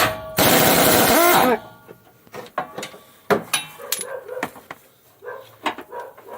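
Work on a Jeep Wrangler track bar bolt: two loud bursts of noise (a short one at the start, then one lasting about a second, with a short grunt near its end), then scattered sharp clicks and knocks of tools on metal.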